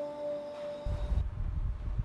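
A sustained musical tone, like a held note in a film score, stops about a second in and gives way to a low background rumble.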